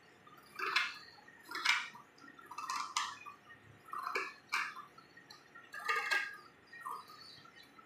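Scissors snipping through lining cloth along a marked line: a series of short, separate cuts, about one a second.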